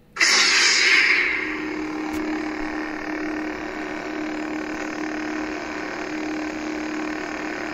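Lightsaber sound board in a Genesis Custom Sabers Bane Legend hilt igniting: a sudden bright ignition sound about a quarter-second in, then a steady low idle hum from the hilt's speaker.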